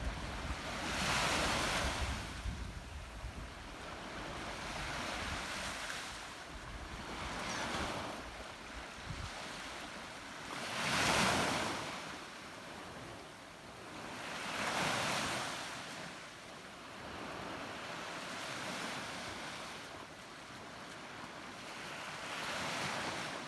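Sea waves breaking on the shore, the surf swelling and falling away every few seconds, with the loudest wave about halfway through. Wind rumbles on the microphone through roughly the first half.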